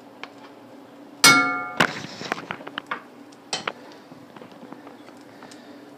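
Utensils knocking against kitchen cookware: one sharp clang with a brief metallic ring about a second in, then scattered light clinks and taps.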